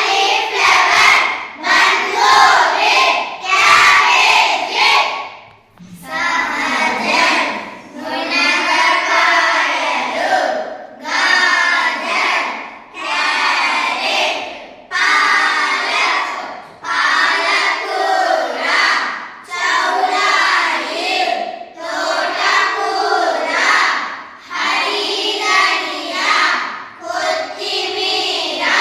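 A group of children reciting words aloud together in unison, in chanted phrases of one to two seconds with short pauses between them.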